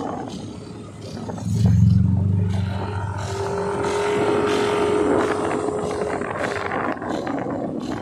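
Motor vehicle engine running on the road, swelling loudest about two seconds in, with a steady hum through the middle.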